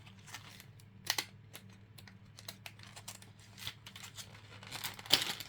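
Fingers picking and prying at a taped plastic press-on nail package: scattered light clicks, ticks and crinkles, with a sharper cluster of clicks near the end as it comes open. A steady low hum runs underneath.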